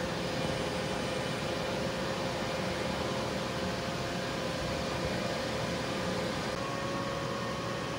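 Steady hum and hiss of machinery running in the background, with a faint constant tone in it.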